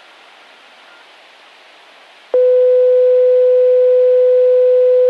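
Disaster-prevention radio loudspeaker hissing, then about two seconds in a loud, steady electronic beep tone comes on and holds without wavering.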